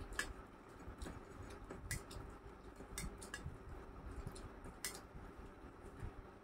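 Rice being mixed by hand on a stainless-steel plate: faint, scattered clicks and taps of fingers against the metal, about half a dozen sharp ticks spread over several seconds.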